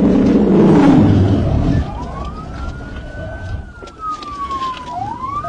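Police cruiser striking a Jeep's rear quarter in a PIT maneuver at about 54 mph: loud collision and scraping noise for the first two seconds. Then the cruiser's siren wails, rising and falling slowly.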